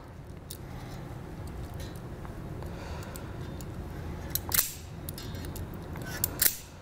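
Self-adjusting wire strippers clamping and snapping as they strip the insulation off a car wire: a couple of sharp clicks about two thirds of the way in and another pair near the end, over a low steady hum.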